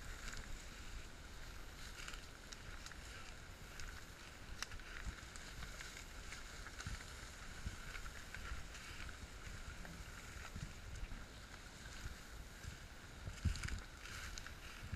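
Faint swishing and rustling of tall grass as a hog carcass is dragged through it behind a walking horse, with scattered snaps and footfalls and a steady high hiss underneath.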